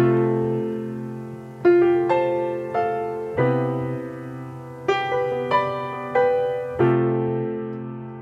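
Background music: solo piano playing slow, gentle notes and chords, each one ringing out and fading.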